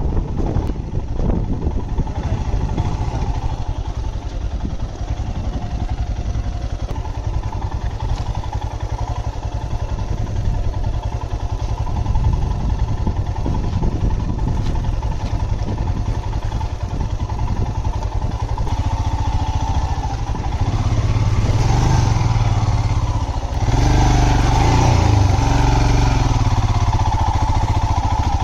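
Royal Enfield Himalayan motorcycle's single-cylinder engine running as the bike is ridden. It gets louder and heavier about three-quarters of the way through, as if pulling harder.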